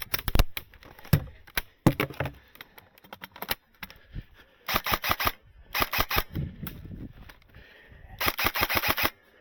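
Airsoft guns firing in several rapid bursts of sharp clicking shots, with single shots in between.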